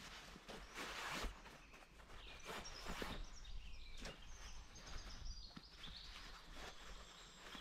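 Faint rustling of a nylon hammock stuff sack being handled, in a few short bursts, with small birds chirping repeatedly in the background.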